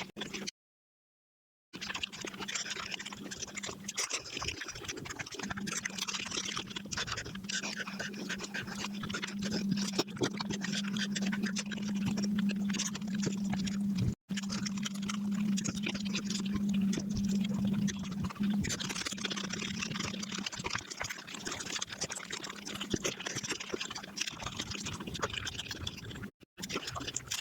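Close-up eating sounds sped up five times: a rapid, continuous patter of chewing and mouth noises over a steady low hum. Cut off by a silent gap of about a second just after the start, a brief dropout halfway through, and another near the end.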